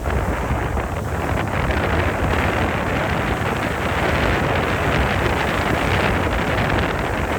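Wind buffeting the microphone over the steady rumble and water rush of a boat under way.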